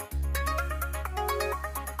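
Electronic background music: a quick, busy melody over a held bass note that shifts just after the start, with a fast, steady tick.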